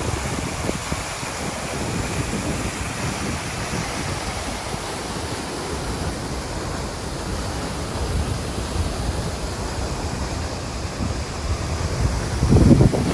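Waterfall rushing with a steady, even roar of falling water. Near the end a low rumble of wind buffets the microphone.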